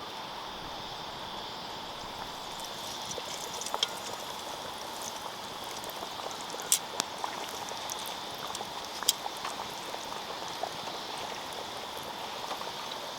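Crumbed chicken schnitzels frying in oil in a cast iron campfire oven: a steady sizzle that grows a little a few seconds in, with sharp pops now and then.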